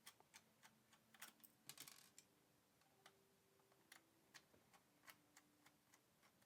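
Faint, sparse clicks and ticks of a Phillips screwdriver backing out the small screws of an SSD drive caddy, with irregular gaps between them.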